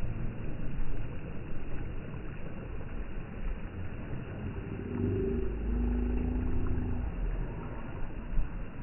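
Wind rumbling on the microphone over a steady wash of small waves. A little past the middle, a low steady engine hum rises for about two seconds and fades.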